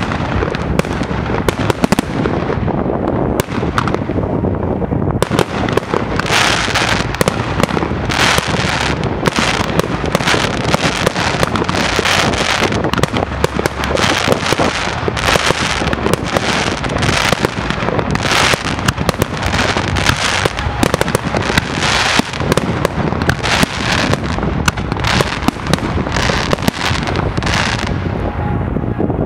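Fireworks display: aerial shells bursting one after another in a dense, continuous barrage of bangs and pops, which grows thicker about five seconds in.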